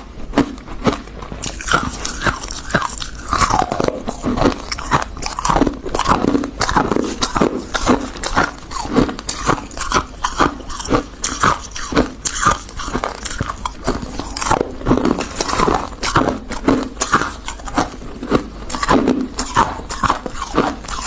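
Refrozen freezer frost being bitten and chewed, with rapid crisp crunches, several a second, all through.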